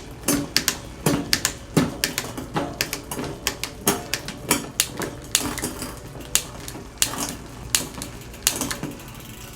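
Mountain bike drivetrain clicking repeatedly, about two sharp clicks a second, as the rear derailleur is shifted across the cassette cogs to check cable tension after a barrel adjuster adjustment.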